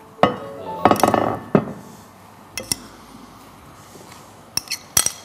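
Ceramic plates and cutlery clattering on a counter: a cluster of knocks and clinks about a second in, then a few single sharp clinks near the end.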